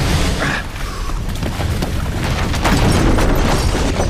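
A torrent of floodwater surging through a theater's rows of seats, with a deep, steady rumble. Many crashes and cracks of breaking, tumbling debris sound through it.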